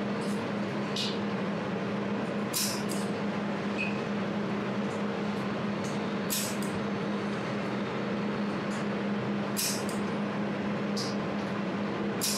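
200W desktop jewelry laser welder running with a steady hum, its cooling running, while it fires at the metal part held in its chamber: short, sharp, hissy snaps come every one to three seconds, about half a dozen in all.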